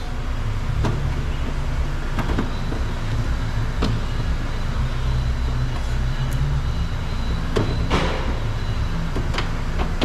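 Scattered clicks and knocks, with a short scrape about eight seconds in, as the outer door handle of a 2018 Honda Accord is held and pulled backwards to work it loose from the door, over a steady low background hum.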